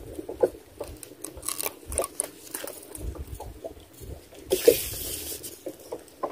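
Water lapping and slapping lightly against a small boat, with irregular small taps and a short hiss about four and a half seconds in.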